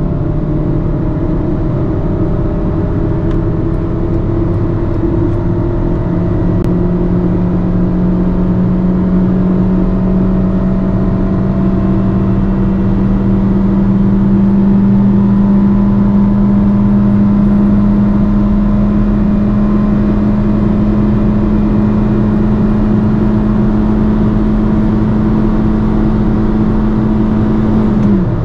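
Fiat Panda's 1.1-litre four-cylinder petrol engine under sustained acceleration, its note climbing slowly in pitch as the car gains speed, over steady road and wind noise. The engine note falls away suddenly near the end.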